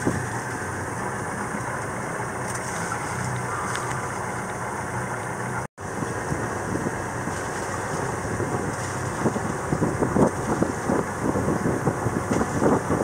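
A boat's engine running steadily, with wind buffeting the microphone in irregular gusts over the second half. There is a brief dropout about halfway through.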